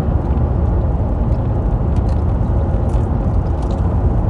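Steady low rumble of a car running, heard inside the cabin, with a few faint clicks over it.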